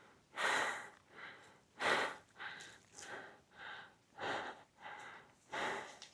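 A man breathing hard close to the microphone, a quick string of short breaths with louder ones about every second and a half: out of breath from hiking in the heat.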